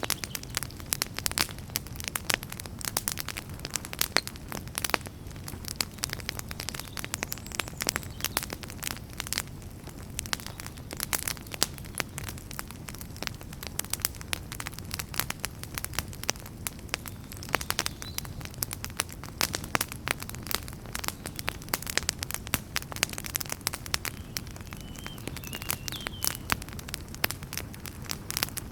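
Wood fire burning in a fireplace, crackling steadily with dense irregular pops and snaps over a low steady rumble of the flames. A few faint short high whistles come and go, two of them close together a few seconds before the end.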